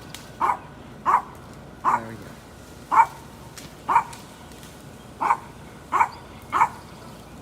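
A dog barking over and over: about eight short single barks, roughly one a second, with a brief pause midway.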